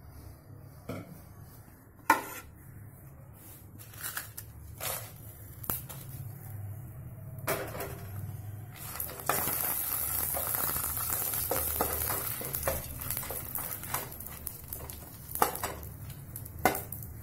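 Dried red chillies and tamarind frying in sesame oil in a nonstick pan: scattered knocks and clatter first, then a steady sizzle from about nine seconds in. Near the end a wooden spatula stirs and scrapes against the pan.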